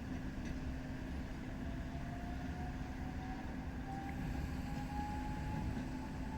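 Tatra T4SU tram running, with a low rumble, a steady hum and a faint whine that rises slowly in pitch.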